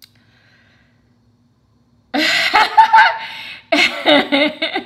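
A woman laughing out loud in two bursts, about two seconds in and again near the end.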